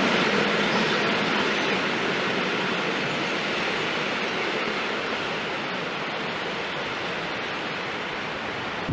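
Freight train of tank wagons rolling past on the rails: a steady noise of wheels on track that slowly fades as the end of the train draws away.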